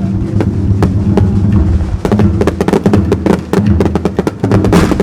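Wa-daiko (Japanese taiko) drumming over a steady backing track. Sharp strikes come at a regular beat, then crowd much closer together about two seconds in.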